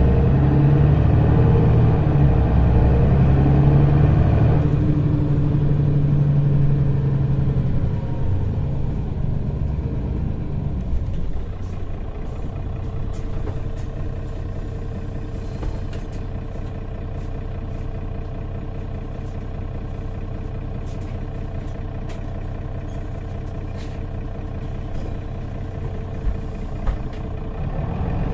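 Inside a city bus: the engine pulls loudly for the first few seconds, drops in pitch as the bus slows, then runs at a steady, quieter idle while the bus waits in traffic, with occasional small clicks and rattles.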